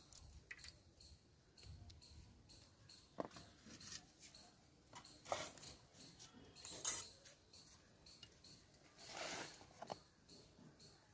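Faint, scattered clicks and scrapes of hands working tomatoes: hollowing one out and cutting with a knife on a wooden chopping board, with a few sharper clicks and a brief scratchy rasp near the end.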